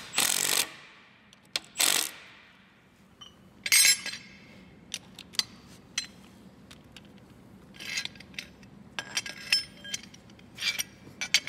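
Metal clinks and clanks of steel bolts and hand tools being handled and set down on a concrete floor: a few louder clanks with a short ring in the first four seconds, then lighter scattered clinks near the end.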